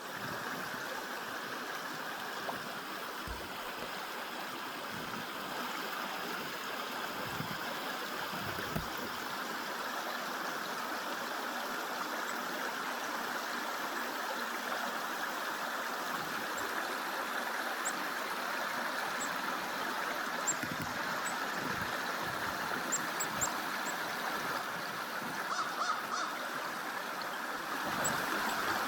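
Creek water running steadily, a constant rushing flow.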